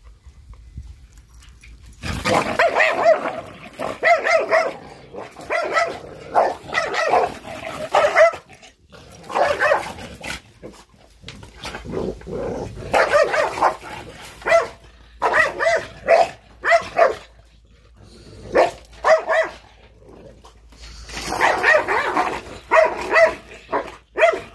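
Dogs barking in runs of quick barks with short lulls between, starting about two seconds in.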